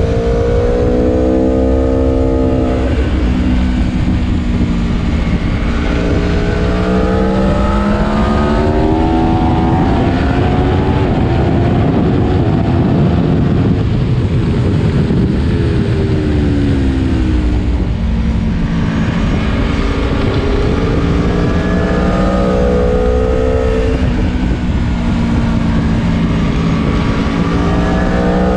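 Aprilia Tuono V4 Factory's V4 engine heard onboard, revving hard and climbing in pitch, with a sudden drop at each upshift. Through the middle a heavy rush of wind noise swamps it; then the engine note falls as the bike slows, and it climbs through the gears again.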